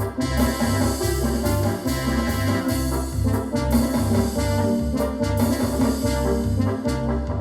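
Yamaha DX7 FM synthesizer playing a brass-like patch in a melody with changing notes, over a pulsing bass line and regular percussion hits.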